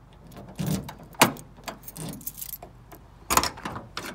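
Keys jangling as a key is worked in a Chevrolet C10 pickup's door lock, with a sharp latch click about a second in. The door then opens with a louder clatter about three seconds in.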